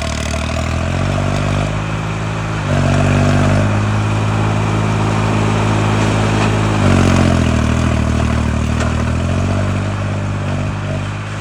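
Farmtrac 60 tractor's diesel engine running while it works a rotavator through the soil. Its note steps up about three seconds in and drops back about seven seconds in.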